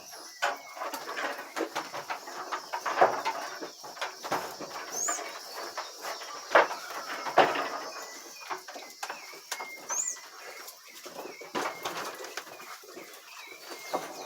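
A bird giving short, high, rising chirps about every five seconds, over irregular knocks and clatter.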